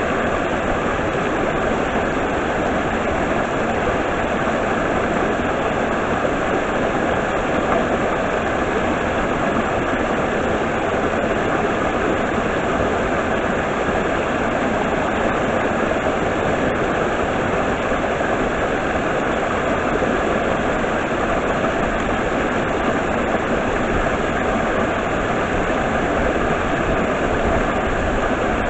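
Steady, unbroken rush of water from a stream and its waterfall.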